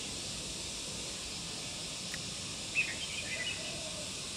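Outdoor ambience: a steady background hiss, with a bird giving a short run of chirps about three seconds in.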